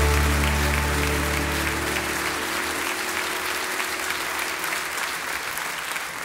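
The song's final chord rings out and fades away over the first two seconds or so, under steady applause that slowly grows quieter.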